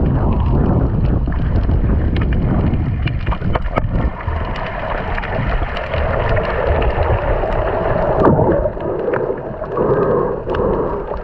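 Muffled underwater sound picked up by a camera in a waterproof housing: a low rumble of moving water with many scattered sharp clicks. From about halfway the rumble eases and a steadier mid-pitched hum comes in.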